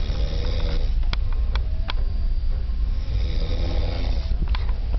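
A man snoring in his sleep: two snores, a short one at the start and a longer one about halfway through, with a few faint clicks between them, over a steady low hum.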